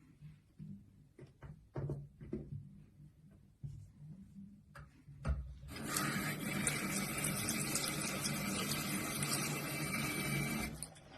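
A few faint knocks and a thump, then a steady rush of running water for about five seconds that stops shortly before the end.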